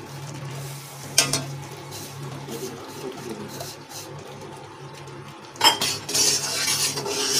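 Metal spoon scraping and clattering against an iron kadai as gram flour is stirred into hot sugar syrup, starting about five and a half seconds in. A single knock comes about a second in.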